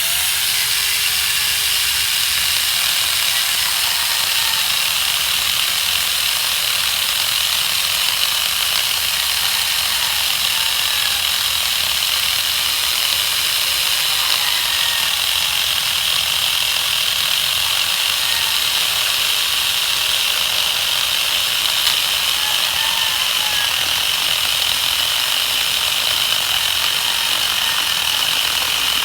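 Chainsaw running steadily as it cuts through wood.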